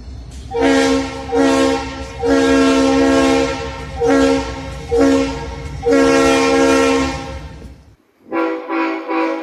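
Locomotive air horn sounding a rhythmic pattern of blasts, two short and one long, played twice, over the low rumble of the train. After a sudden break near the end, a different horn begins a string of quick short blasts.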